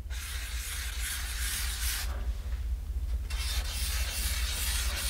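Pen scratching across paper on a clipboard as looping spiral shapes are drawn, in two stretches with a short pause between them.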